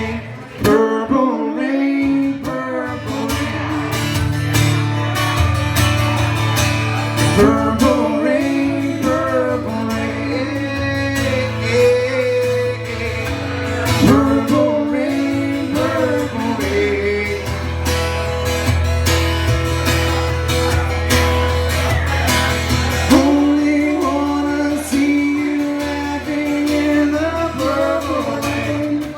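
Live acoustic guitar music with a singing voice, played continuously.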